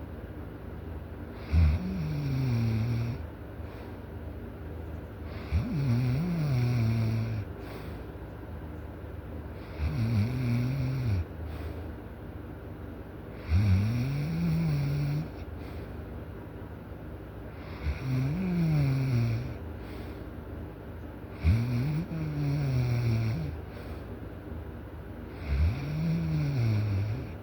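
Loud, regular snoring of a sleeper: seven snores come about every four seconds. Each starts with a sharp catch and carries a rough low tone that rises and then falls over a second or so.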